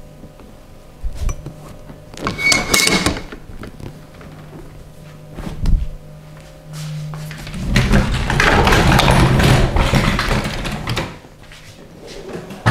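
Massage handling sounds: hands rubbing over skin or hair in short bursts, a single sharp smack about halfway, then several seconds of vigorous, close rubbing.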